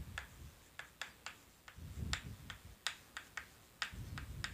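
Chalk writing on a blackboard: a run of short, sharp clicks about four a second, with a few low, dull thuds.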